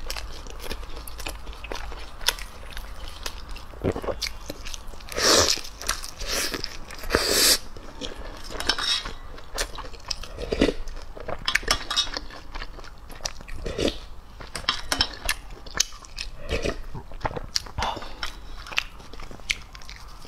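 Close-miked eating sounds: biting and chewing meat, with wet mouth smacks and clicks, and a few louder slurping sips of broth from a spoon.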